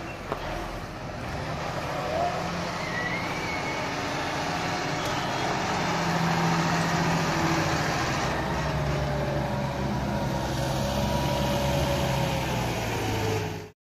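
Large tractor's diesel engine running under load as it drives over a silage clamp, its pitch shifting as it climbs and comes down the heap. The sound cuts off abruptly near the end.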